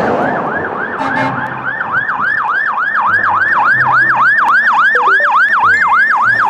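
Electronic siren of a toy fire engine: a fast yelping tone that sweeps about four times a second.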